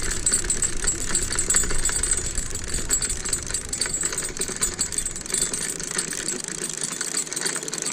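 Fishing reel being cranked to bring in a hooked fish: a rapid, steady run of clicking and rattling.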